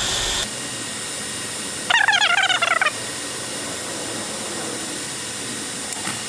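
TIG welding arc on thin-wall stainless pipe, running with a steady hiss. About two seconds in, a wavering high-pitched tone sounds for about a second.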